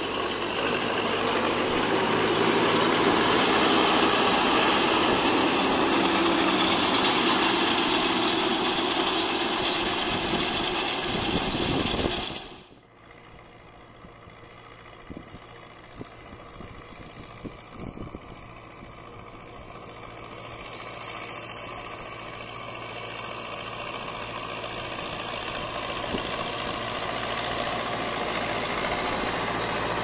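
Massey Ferguson 4299 tractor pulling a John Deere 592 round baler through alfalfa, its engine and the baler running loud and close. About twelve seconds in the sound drops sharply to a quieter, more distant run with a few faint clicks. It then grows steadily louder as tractor and baler come near again.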